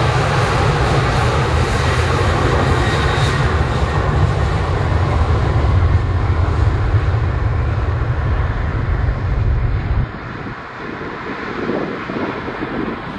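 Boeing 737-800 jet engines at takeoff power as the airliner rolls away down the runway, the sound steadily fading. A heavy low rumble cuts off abruptly about ten seconds in, leaving the jet noise fainter.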